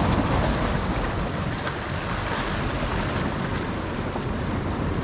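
Sea waves washing against a rocky shore, a steady rush with wind buffeting the microphone.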